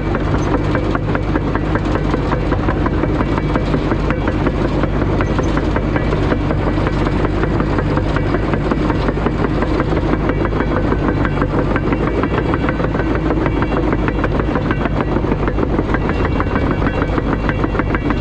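Caterpillar D5 crawler dozer's diesel engine running steadily, with a fast, even clatter from the steel tracks as it works.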